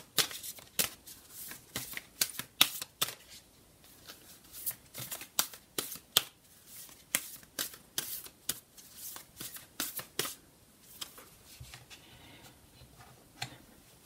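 Deck of tarot cards shuffled by hand: a quick, irregular run of cards clicking and slapping together, thinning out near the end.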